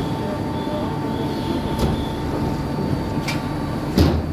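Steady machine-hall noise: a broad hum with a constant whine running under it, broken by three sharp knocks, the loudest near the end.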